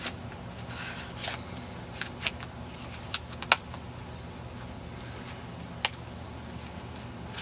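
Scout Woodsman bushcraft knife handled in its leather sheath: light rubbing of leather and a handful of sharp, separate metallic clicks, the loudest about three and a half seconds in.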